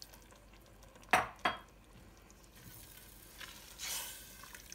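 Two sharp knocks against a stainless steel pot about a second in, then a silicone spatula stirring thick chili beans near the end.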